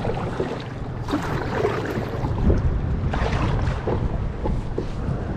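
Wind buffeting the microphone, with sea water lapping and splashing around a kayak.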